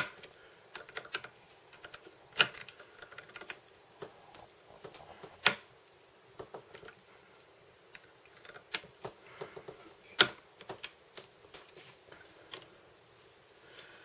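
Irregular sharp metallic clicks and taps of a Gerber Shard keychain tool's flathead tip turning a wood screw out, the steel tip slipping and catching in the screw head, with a few louder knocks among them.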